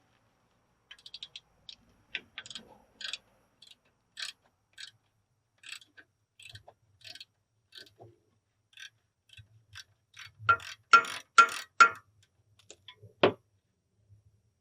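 Ratchet wrench clicking in short strokes as a brake caliper slider bolt is undone. About ten seconds in comes a burst of louder metallic clanks, then a single sharp knock near the end.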